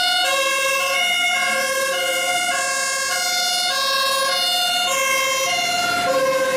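German fire engine's two-tone siren, alternating steadily between a high and a low note, as the engine drives out on an emergency call.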